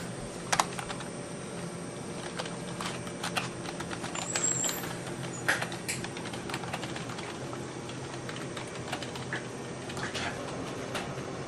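Scattered light clicks and taps at uneven intervals over a steady low hum.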